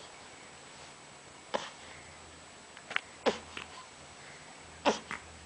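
Baby making short breathy grunts and squeaks, four brief ones with quiet between, two of them falling in pitch.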